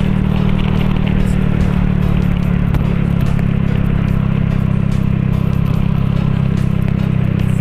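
Honda scooter engine running steadily at cruising speed, with road and wind noise, heard from on board while riding. The engine's note shifts slightly about three seconds in.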